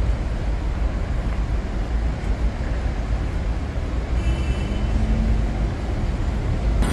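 Steady city road traffic from a multi-lane street: a continuous low rumble of passing cars and buses.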